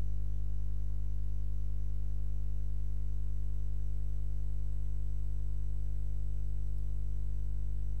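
Steady electrical mains hum on the recording: a low, even buzz with a ladder of higher overtones that does not change.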